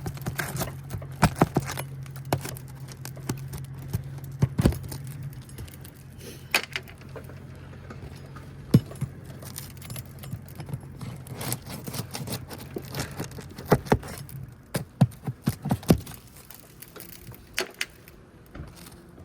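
Metal roofing tool clicking and scraping against old, brittle asphalt shingles and their nails as it pries under the shingle tabs, in irregular sharp clicks, over a steady low hum that stops about sixteen seconds in.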